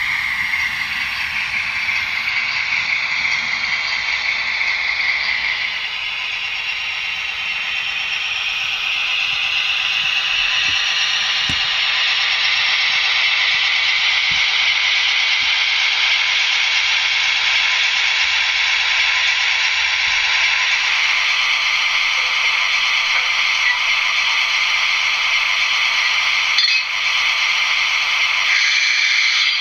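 Digital sound decoder of an HO-scale REE Models BB 67300 diesel locomotive playing its diesel engine sound through the model's small onboard speaker. The sound is steady and thin, with little low end. It grows somewhat louder after several seconds, and a few faint clicks come in partway through.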